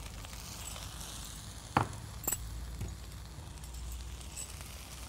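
Faint sizzle of sago khichuri cooking in a wok-shaped pan, with three light knocks of a utensil against the pan a little under two seconds in.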